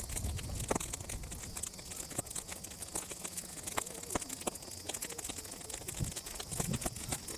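A fire of sun-dried weeds burning and crackling, with frequent sharp irregular pops. Low gusts of wind rumble on the microphone now and then.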